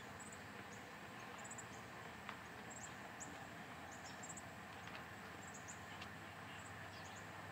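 Quiet outdoor garden ambience: a faint steady hiss with scattered short, high chirps, and a single light click a little after two seconds.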